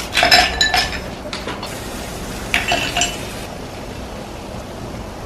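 Tableware clinking: a few light, ringing clinks in the first second and another pair about two and a half seconds in.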